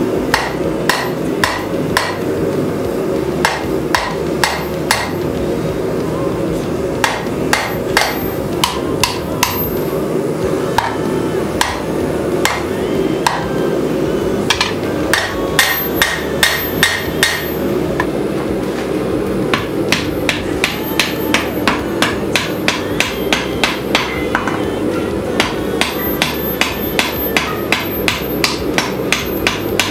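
Hand cross-peen hammer forging a red-hot rebar blade, sharp blows at about two a second in runs with short pauses. By the end the blade is being struck on a wooden stump rather than the anvil.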